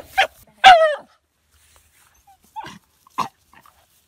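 Dog barking: a sharp bark, then a longer bark or yelp falling in pitch within the first second, then two fainter short barks about three seconds in.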